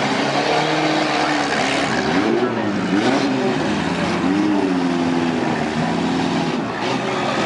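Several compact cars' engines revving in a demolition derby arena, their pitch rising and falling repeatedly over a steady rush of noise.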